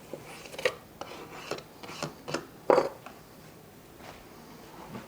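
Kitchen pans and utensils being handled: a few scattered light knocks and clinks, the loudest about three seconds in, then quiet handling.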